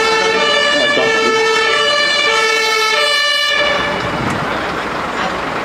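German two-tone emergency-vehicle siren (Martinshorn) alternating between a low and a high tone, each held for well under a second. It cuts off suddenly about three and a half seconds in, leaving a steady noise of traffic and street.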